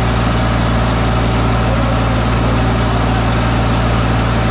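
Two diesel tractor engines, a Preet 3549 and a Sonalika DI 35, running hard as they pull against each other on a taut chain in a tug-of-war. The drone is loud and steady, with no change in engine speed.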